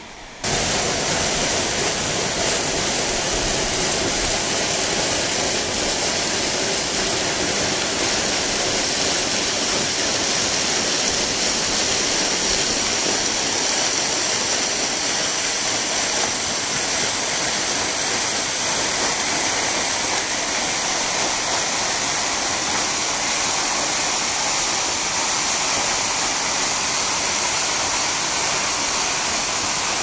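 Waterfall: a loud, steady rush of falling water that cuts in suddenly about half a second in.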